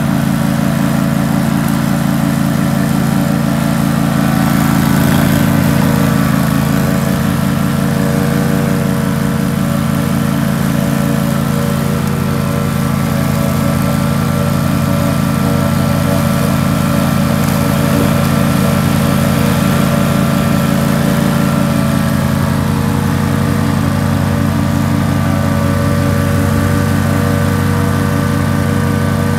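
Engine of a remote-controlled tracked slope mower running steadily as the machine drives over grass, its note rising slightly about five seconds in.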